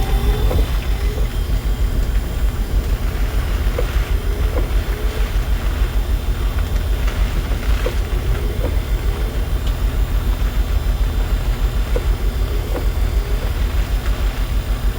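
Jeep engine idling with a steady low rumble and the cabin fan running, heard inside the vehicle. A faint short sound recurs about every four seconds over it.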